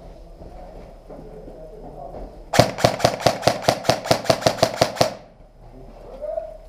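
Airsoft gun firing a quick string of about fifteen shots, roughly six a second, lasting about two and a half seconds and starting a little under three seconds in.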